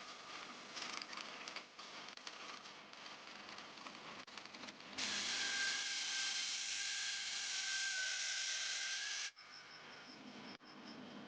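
Abrasive shaping of a steel knife blade cut from a vehicle leaf spring: uneven rubbing and scraping for about five seconds, then a power tool runs with a steady hiss and a single whine for about four seconds and stops suddenly.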